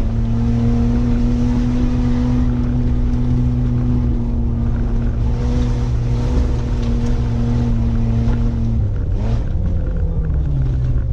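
Mitsubishi Pajero's 3-litre V6 petrol engine pulling steadily in low revs, heard from inside the cabin. About nine seconds in its pitch drops as the revs fall.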